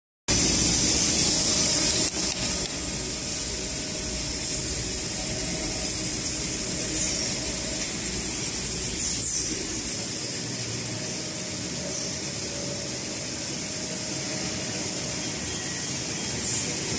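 CNC Swiss-type longitudinal lathe running, a steady machine noise with a hiss over it and a faint steady tone, louder for the first two seconds.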